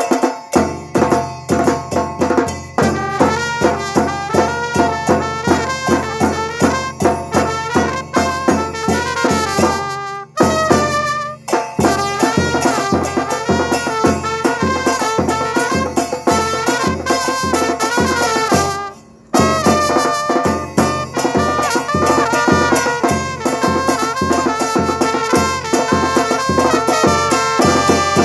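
Rehearsal band playing: a brass melody over a steady drum beat, with brief breaks about ten and nineteen seconds in.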